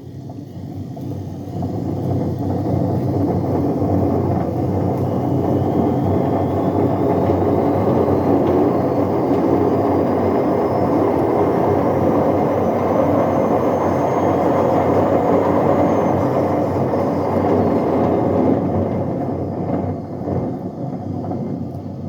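Bush A126Q washing machine on a spin cycle: a loud, steady rumble from the drum bearings, with a faint motor whine that climbs in pitch as the drum speeds up. The spin starts to slow near the end. The rumble is the sign of bad, worn drum bearings.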